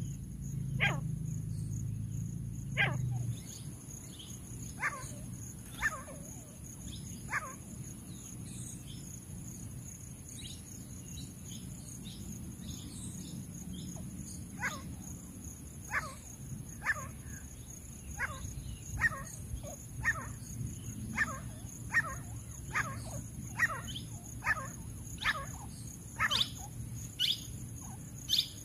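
Grey francolin calling: short, sharp call notes, scattered at first, then from about halfway a regular series of roughly one a second that quickens near the end. A steady high-pitched hum runs beneath.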